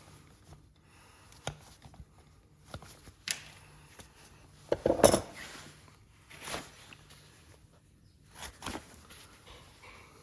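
Hoof-trimming tools working on a horse's hoof: irregular sharp snips and short scrapes on the hoof horn, the loudest cluster about five seconds in.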